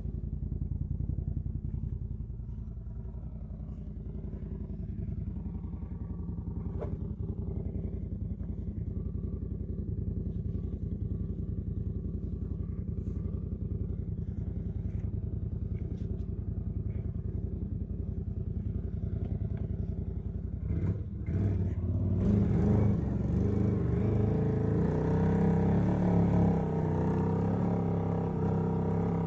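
A vehicle engine running steadily. About 21 seconds in it grows louder and fuller, as if under more throttle or load.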